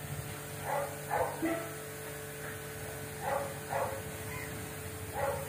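Golden retriever puppy barking: short, high barks in pairs, a pair about every two seconds, over a faint steady hum.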